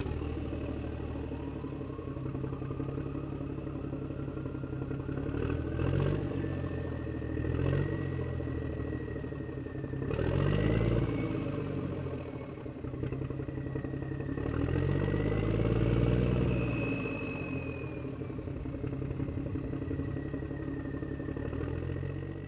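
Heavy-vehicle engine running, revved up and down several times, loudest around the middle and again a little past two-thirds of the way through, with a thin high whine gliding above it.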